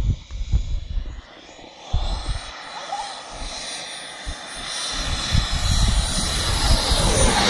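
Radio-controlled model jet flying a pass: its engine's high whine and rush grows steadily louder through the second half and peaks as it goes by close near the end. Wind rumbles on the microphone in the first two seconds.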